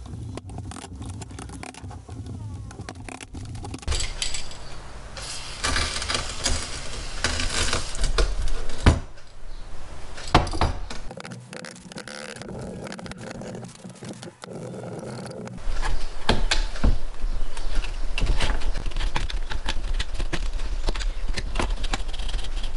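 Hand tools and metal parts clinking, knocking and scraping while an electric drill press motor is stripped down, with irregular sharp clicks throughout and a longer stretch of scraping between about four and nine seconds in.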